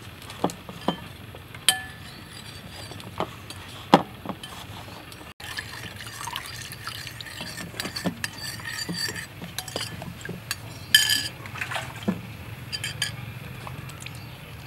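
A metal spoon clinking and scraping against a small ceramic bowl in short, irregular taps as green liquid is stirred in it.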